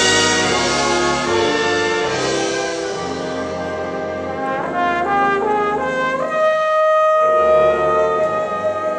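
Trombone solo in a slow jazz ballad, backed by a school jazz band with saxophones and electric guitar. The line climbs near the middle, then holds one long high note from about six seconds in to near the end.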